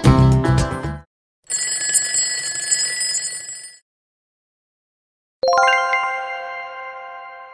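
Quiz sound effects: background music stops about a second in, then a bell rings for about two seconds as the countdown runs out, signalling time's up. Near the end a single bright chime is struck and fades slowly, marking the reveal of the answer.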